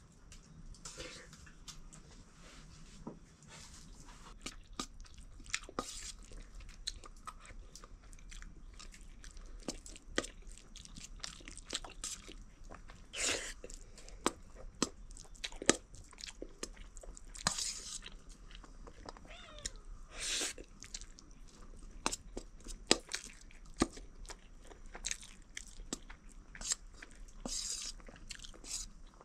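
Someone eating fried rice: chewing with many sharp clicks and short scrapes. A cat meows faintly about two-thirds of the way through.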